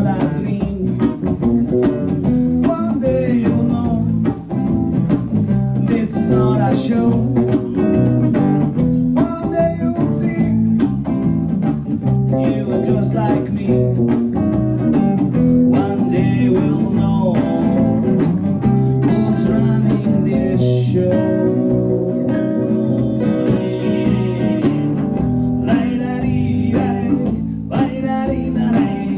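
Live band performing an original song: guitar-led music with singing.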